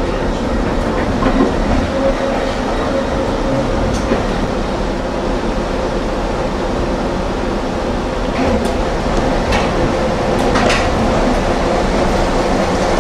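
Vintage streetcar running on the track, heard from inside the car: a steady rumble with a low hum from the motors and gears. Scattered sharp clicks and rattles, bunched between about eight and eleven seconds in, come from the wheels and car body.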